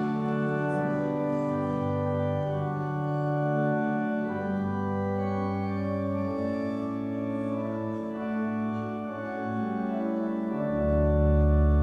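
Organ playing a hymn tune in slow, held chords, with a deep bass note coming in near the end.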